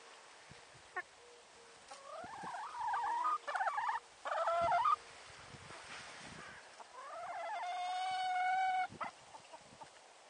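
A rooster crowing twice: first a crow broken into several syllables about two seconds in, then a longer crow about seven seconds in that rises and ends on a held note.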